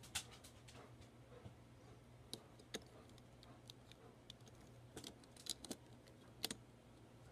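Scattered small plastic clicks and taps from Lego pieces being handled, about a dozen at irregular intervals, over a faint steady low hum.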